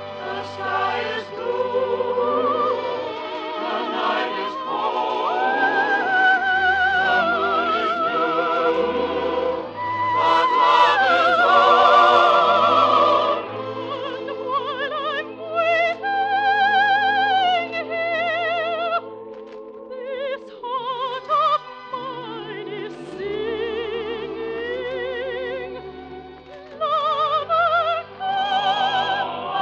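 Operatic singing with strong vibrato over an orchestra, from a 1948 radio broadcast of an operetta, the recording limited in its top end.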